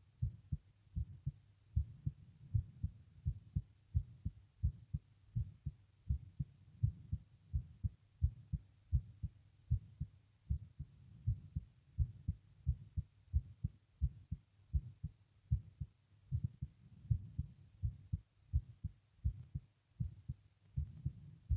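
Human heartbeat recorded close to the body: a regular run of low, dull lub-dub thumps, fast and pounding, which the uploader takes for palpitations with a heart murmur. A faint steady hiss sits behind it.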